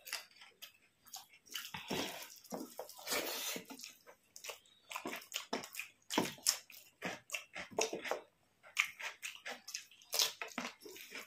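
Close-up wet eating sounds: irregular smacks, clicks and squelches of chewing and lip-smacking over rice and fish curry.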